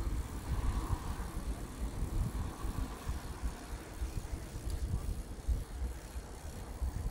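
Wind buffeting a phone's microphone on a moving bicycle: an uneven low rumble that rises and falls.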